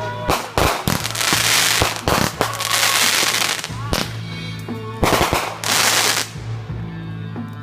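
Fireworks going off: a rapid, irregular string of sharp bangs and crackles, with several loud hissing bursts between them.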